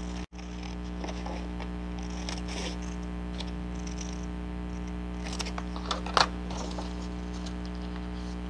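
Steady electrical hum with a few faint, light paper rustles and taps as paper is handled and trimmed; the most distinct rustle comes about six seconds in.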